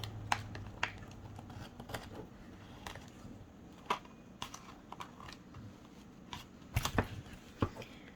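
Scissors trimming the edge of a paper page: short, irregular snips and paper rustles, a cluster of sharper clicks about seven seconds in.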